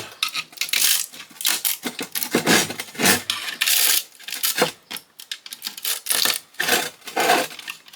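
Hand tools clinking and knocking against the metal parts of a Badger garbage disposal being taken apart, in quick, irregular taps and clatters.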